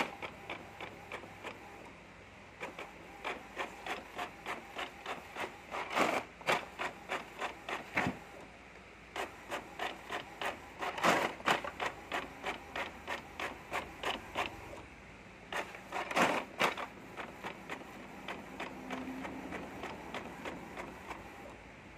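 Inkjet printer printing, its print head carriage shuttling back and forth across the page: a quick run of ticks about three a second, with a louder burst every five seconds or so.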